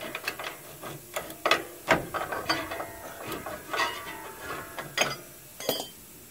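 Irregular metallic clicks and clinks of a hand tool working at the retaining wire inside a trailer's S-cam drum brake, metal knocking against the brake shoes and hardware, some strikes ringing briefly.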